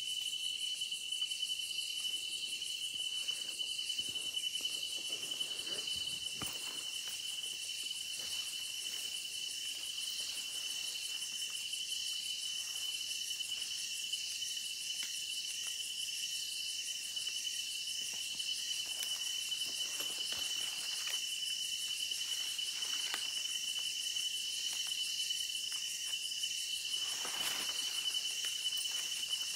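Night insect chorus: a steady high-pitched trill with faster pulsing calls above it. A few faint rustles come through, the clearest near the end.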